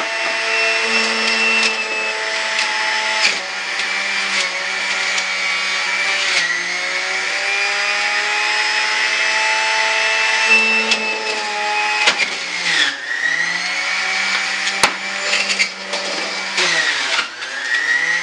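Electric juicer motor running with a steady whine. Its pitch sags and then recovers several times, about four times in all, as produce is pressed down the feed chute with the plunger and the motor slows under the load. A few sharp clicks come near the middle.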